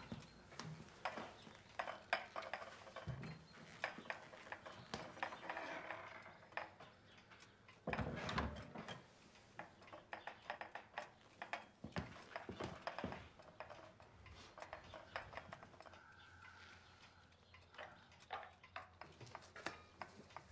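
Sheets of paper rustling and being shuffled by hand on a table, with scattered small knocks and clicks; the loudest swish comes about eight seconds in.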